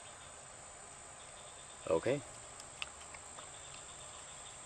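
Insects trilling steadily, one high unbroken tone. Just after a short spoken word come a few faint clicks as a dog licks and eats yucca flowers from a hand.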